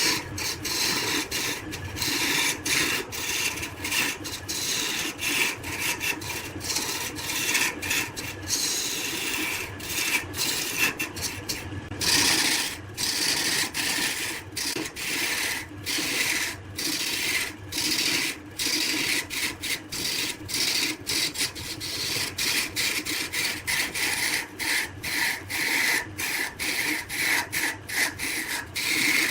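Turning tool cutting wood spinning on a lathe: a continuous rasping hiss over the lathe's steady hum, broken by many brief gaps.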